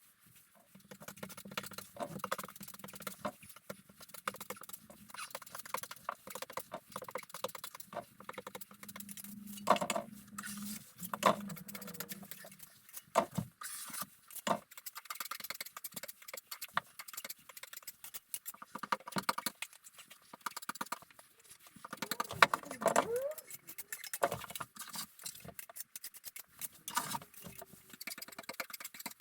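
Irregular scratchy scraping and clicking of a filling knife working filler into wall joints, with a few brief squeaks partway through.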